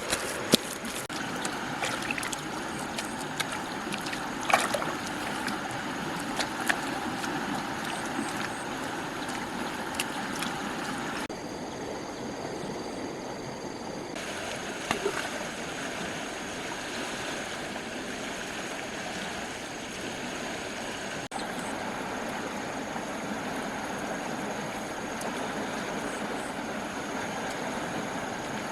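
Water running and splashing steadily, with a few sharp knocks and splashes scattered through it.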